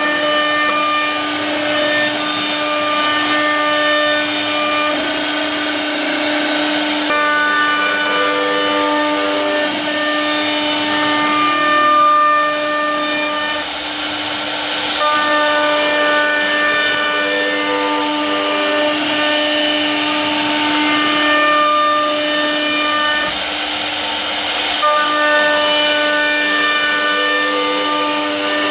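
CNC router spindle running with a steady whine as its bit carves a wooden bed panel. Higher whining tones on top shift to a new set every few seconds as the head changes its moves.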